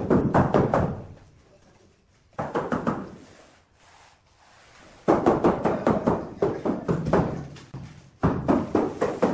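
Rubber mallet tapping a large 80x80 cm ceramic floor tile to bed it into the mortar: quick runs of knocks, several to the second, in four bursts with short pauses between.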